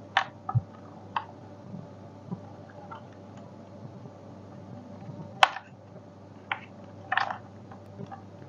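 Scattered clicks, taps and brief rustles of hands and a tool working on the plastic parts of a Xiaomi robot vacuum-mop during disassembly. The sharpest click comes about five and a half seconds in, and a short rustle follows a couple of seconds later.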